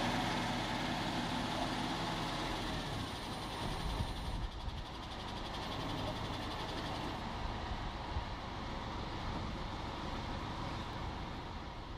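Heavy diesel engine running steadily, a low hum and rumble, with its even tone clearest in the first few seconds.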